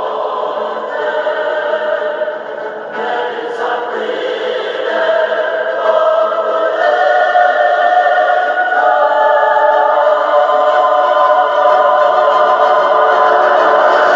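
Choir music singing long, held chords, growing louder about five seconds in.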